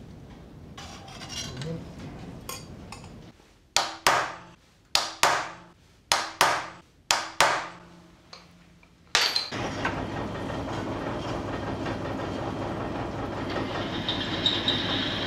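Hammer blows on metal: about ten sharp, ringing strikes, several in quick pairs. A steady machine noise then starts and runs on.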